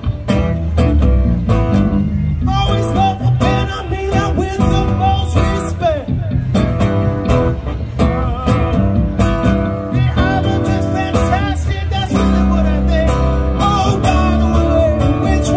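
Live guitar music: two guitarists jamming together in a bluesy style, with dense picked notes and bending lead lines.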